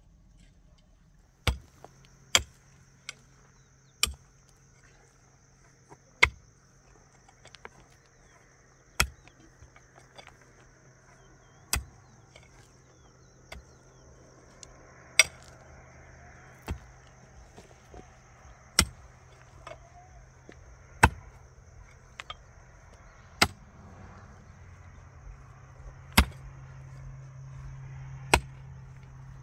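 Sharp knocks or strikes, about fourteen in all, one every one to three seconds, over a steady low hum and a steady high whine.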